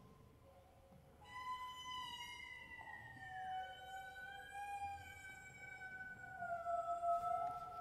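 Soprano voice singing a high, sustained wordless tone that slides slowly down in pitch, beginning about a second in after a near-quiet pause.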